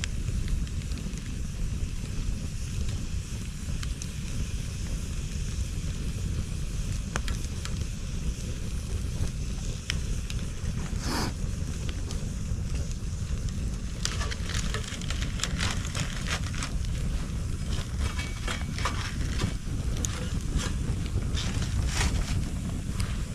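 Bonfire of cut bamboo crackling, with one sharp pop about eleven seconds in and denser crackling in the second half. Wind rumbles on the microphone underneath.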